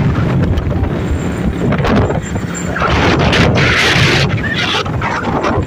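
Wind buffeting the microphone over the engine and road noise of a moving motorcycle, with stronger gusts of wind noise around three to four seconds in.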